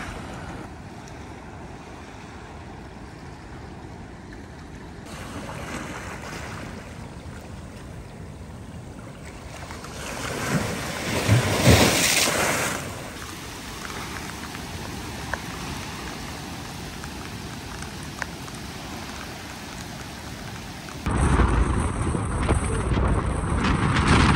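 Small waves washing onto a rocky, sandy shore, with wind on the microphone; one wave surges and breaks louder about ten seconds in. Near the end the sound cuts to louder, steady rushing wind noise from a moving car.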